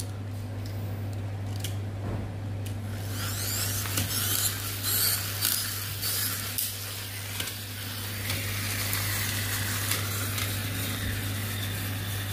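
Pull-back toy battle cars running on a tile floor: the wound-up gear motors whirring, with several sharp clicks and knocks as the cars bump into each other.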